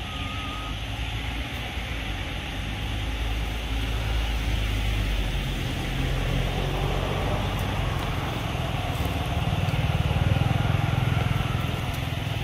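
A motor engine running, a low steady drone whose pitch shifts and which grows louder about ten seconds in.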